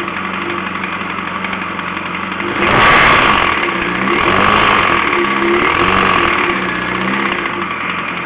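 2005 Yamaha R1's inline-four engine idling, then revved up sharply about a third of the way in and blipped a couple more times before dropping back toward idle. It carries a knock that a new manual cam chain tensioner has not cured, which the owner suspects is a spun rod bearing.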